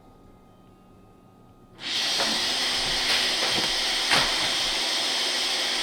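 Blender motor switching on suddenly about two seconds in and running loud and steady with a hissing roar, then cutting off abruptly at the end.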